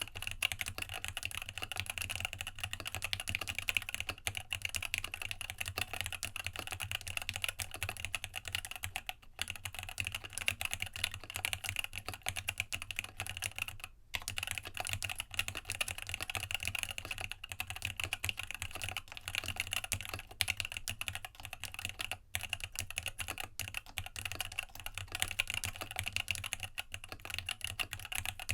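Continuous fast typing on a Rama Works U80-A mechanical keyboard with a brass plate, internal dampener, Gateron Tealios linear switches and PBT keycaps: a dense run of key clacks with a few short pauses.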